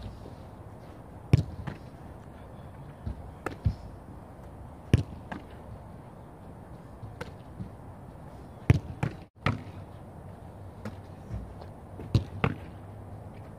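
A football being thrown, kicked and caught in goalkeeper gloves: a string of sharp thuds, one every second or two, with a brief dropout about nine seconds in.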